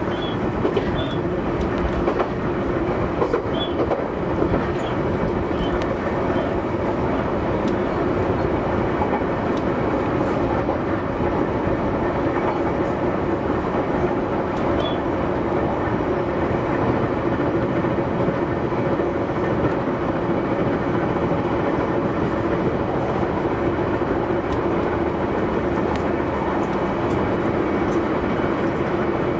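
E131 series electric multiple unit running at speed: a steady rolling noise of steel wheels on rail with a low hum, and a few faint ticks in the first seconds.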